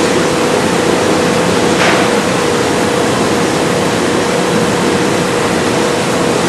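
Steady industrial machinery noise on a factory floor: an even rushing with a constant hum held at one pitch.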